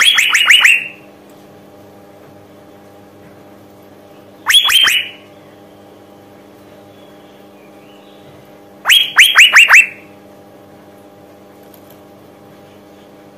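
Female Asian fairy-bluebird calling in three short bursts: at the start, about four and a half seconds in, and about nine seconds in. Each burst is a rapid run of a few sharp whistled notes, each note falling in pitch. It is the call of a female in breeding condition, the kind used to set male fairy-bluebirds singing.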